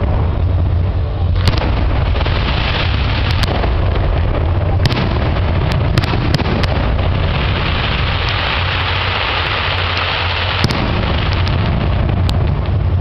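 Fireworks display: aerial shells bursting with sharp bangs every second or two, over a steady low rumble. A loud hiss rises past the middle and stops with a bang near the end.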